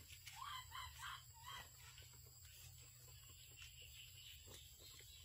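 Faint short animal calls over near silence: a quick run of four rising calls starting about half a second in, then fainter scattered calls later on.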